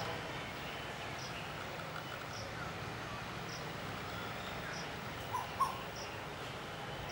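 Outdoor bird and insect ambience over a steady hiss. A short high-pitched note repeats about once a second, with faint distant chirps, and two short louder calls come about five and a half seconds in.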